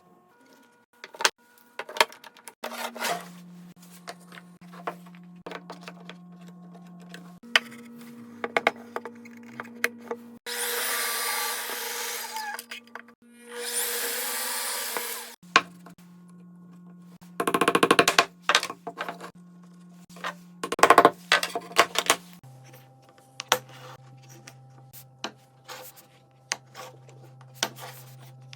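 Hand woodworking on small wooden pieces: sharp knocks and clatter of wood, two hissing tool bursts of about two seconds each near the middle, and loud rasping strokes a few seconds later.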